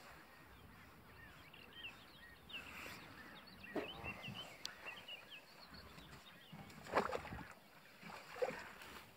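Outdoor wind noise with small birds twittering in quick short chirps through the first half. A few knocks and rustles of fishing tackle being handled, the loudest about seven seconds in.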